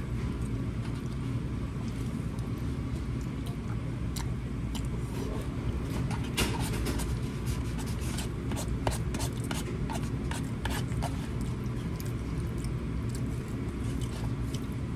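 Eating sounds: a fork scraping and clicking in a bowl of pasta, with chewing, most busy around the middle, over a steady low hum.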